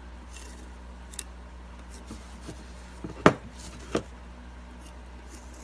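A few light clicks and knocks of a railroad spike being handled while cut lines are marked on it, the sharpest about three seconds in, over a steady low hum.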